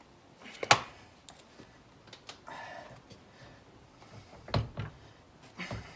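Handling of tools and small hardware: a sharp click less than a second in, a few light ticks, a brief scrape, then a couple of dull knocks near the end.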